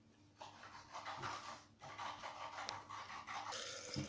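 Water starts pouring into a plastic blender jar onto fresh gotu kola leaves about three and a half seconds in, a steady splashing pour. Before it come two stretches of soft hissing noise.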